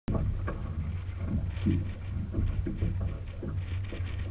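Drift boat moving on a river: water splashing and knocking against the hull in an irregular patter, over a steady low rumble.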